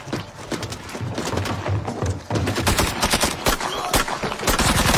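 Automatic gunfire in a film shootout: many shots in quick succession, growing denser in the second half.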